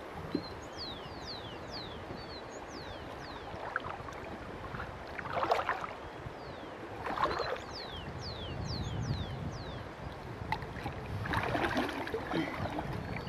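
River water sloshing and splashing around a wader's legs and a tin can being worked down into the shallows, with louder splashes about five and a half and seven seconds in and again near the end.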